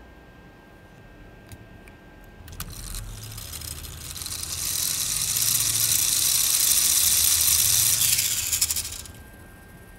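LEGO Technic motor driving a gear train that spins up a stacked-disc spinner: a whirring with gear rattle. It sets in about two and a half seconds in, builds over a couple of seconds, runs loud and high, then cuts off suddenly near the end.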